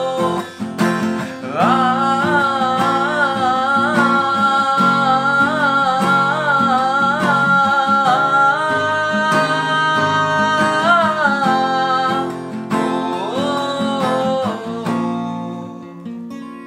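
A man singing long, wavering held notes while strumming an acoustic guitar. Near the end the singing stops and the guitar carries on more quietly.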